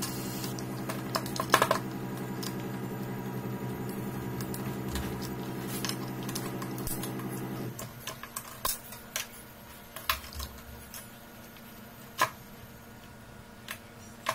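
Light clicks and knocks of plastic housing parts, screws and wiring being handled as a battery strapping tool is taken apart. A steady hum runs under the first half and cuts off suddenly a little past halfway.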